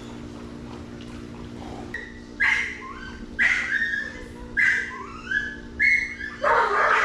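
Excited dog yelping: a run of about five high-pitched yelps, each falling in pitch, roughly one a second, starting about two seconds in, with a louder, rougher burst near the end.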